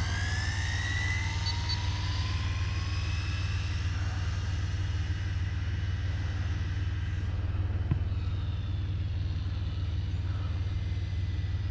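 Electric whine of the Arrma Vendetta RC car's brushless motor rising quickly in pitch as it accelerates away, then levelling off and fading, over a steady low rumble. A single click comes about eight seconds in.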